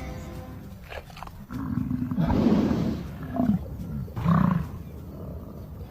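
American bison bull bellowing during the rut: one long, deep bellow about a second and a half in, followed by a few shorter ones.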